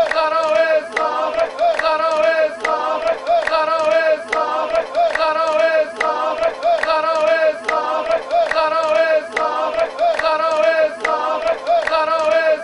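Live Moroccan folk song: voices singing a short phrase over and over above a steady percussion beat of about two strokes a second.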